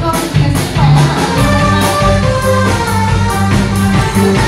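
Live band playing music with a steady drum beat and guitar.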